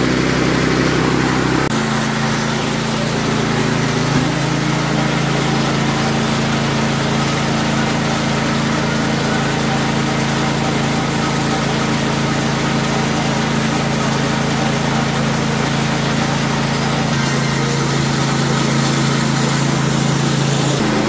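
Mini rice milling machine running steadily while milling paddy, a continuous motor-driven hum. Its tone shifts a little about two and four seconds in and again near the end.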